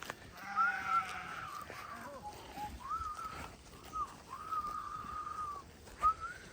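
Sheep bleating, a series of separate calls one after another, with a sharp knock about six seconds in.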